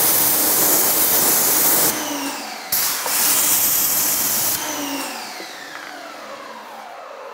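Active 2.0 electric pressure washer spraying a hissing jet of water in two long bursts, about two seconds each, its motor humming under the spray. Each time the trigger is released the motor's whine falls in pitch, and after the second burst it slides steadily down as the motor winds down.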